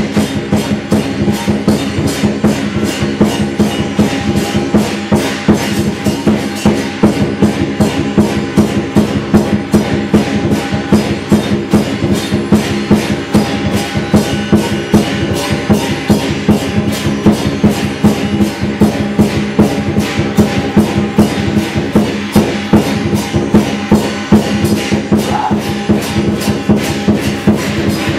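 Lion dance percussion: drum, cymbals and gong beating a steady, driving rhythm, with the cymbals and gong ringing on between strokes.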